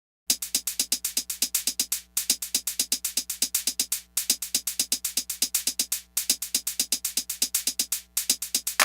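Electronic background music with a fast, steady drum-machine beat. It cuts in suddenly from dead silence just after the start, with a short break about every two seconds.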